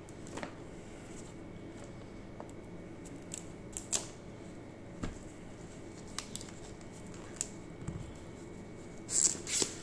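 Clear plastic shrink wrap being slit and peeled off a small cardboard watch box: scattered light clicks and crinkles, with a louder burst of crinkling near the end.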